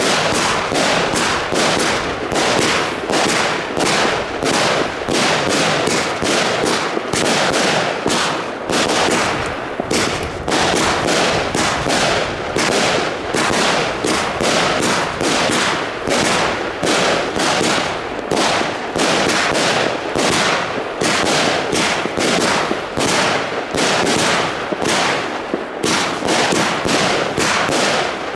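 Heron PSP 3-1A 50-shot fan-shaped firework cake firing: a steady, rapid run of shots, about two a second, as its tubes launch and burst stars.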